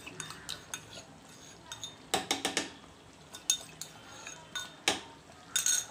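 A spoon scraping fresh cream out of a porcelain bowl, knocking against the bowl with several sharp clinks.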